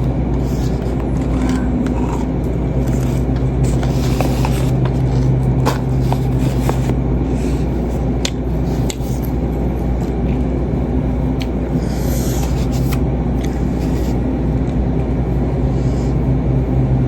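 Steady low mechanical hum with a constant rumble, broken by scattered small clicks and scrapes.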